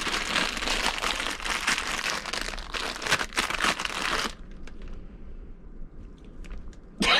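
Crinkling of a Fritos corn chip bag as it is handled and opened, stopping about four seconds in; a few faint small clicks follow.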